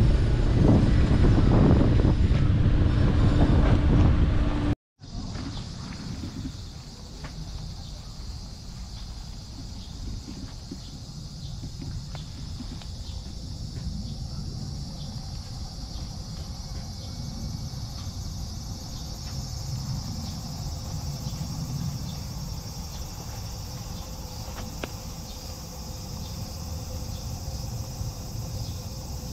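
A loud low rumble that cuts off abruptly about five seconds in. After it comes steady outdoor background: a quieter low rumble under an even, high chirring of insects.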